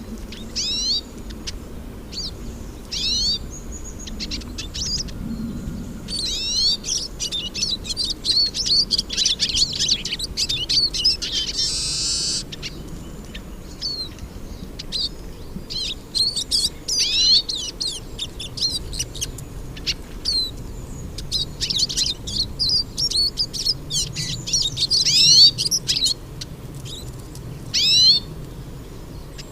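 Several hooded siskins (Brazilian pintassilgo) singing: fast, high twittering phrases of rapid rising and falling notes that come in spurts and are densest in the middle, with a short harsh burst about twelve seconds in.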